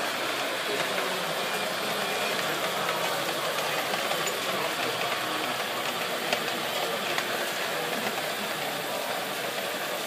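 Radio-controlled scale model truck driving, heard from a camera mounted on its cab: a steady running noise from its drive and gears, with a few faint clicks.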